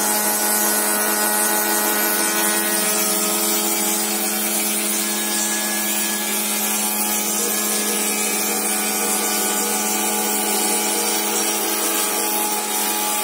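Small desktop CNC router's spindle running steadily, its wide flat-bottomed surfacing bit milling flat the top of a wooden sacrificial bed. The steady pitched whine of the spindle sits over a constant hiss of cutting.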